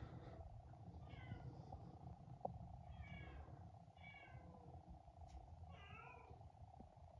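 Four faint, short cat meows, each falling in pitch, spread across the few seconds over a low steady room hum.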